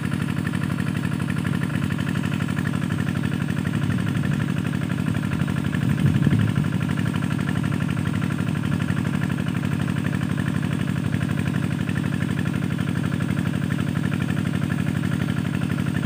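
A steady engine-like drone, holding an even pitch and level, with a brief swell about six seconds in.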